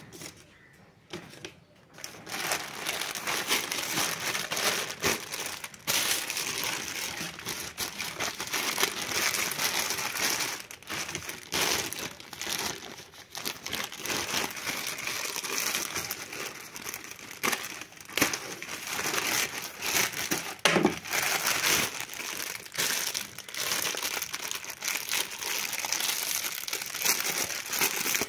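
Plastic courier mailer bag crinkling and crackling as it is handled and cut open, with a clear plastic wrapper crinkling near the end. The crinkling starts about two seconds in and runs on with frequent sharp crackles.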